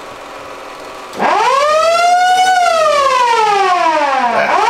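Original mechanical siren on a 1972 AMC Javelin SST police car winding up to a wail about a second in, then sliding slowly down in pitch as it is switched off, and winding up again near the end as it is switched back on.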